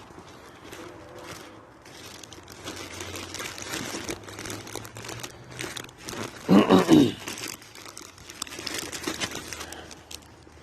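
Crinkling and crunching rustle, uneven and continuous, with a short, loud pitched sound, like a brief vocal noise, about two-thirds of the way through.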